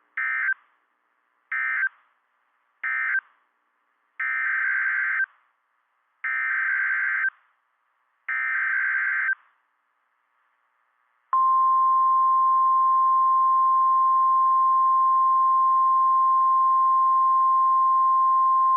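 NOAA Weather Radio Emergency Alert System signalling: three short bursts of screechy digital SAME data marking the end of one warning, then three longer SAME header bursts for the next warning. About 11 seconds in, the steady 1050 Hz Warning Alarm Tone starts.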